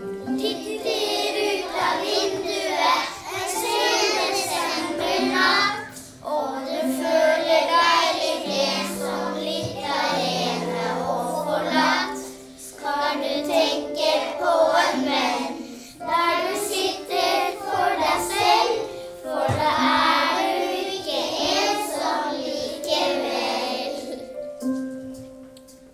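A group of children singing a Norwegian Christmas song in unison over instrumental accompaniment.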